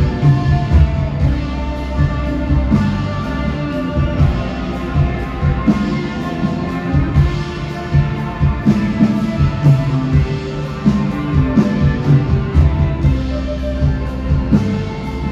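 Live band music played loud over the stage sound system, with a steady beat of about two strokes a second under sustained instrumental notes.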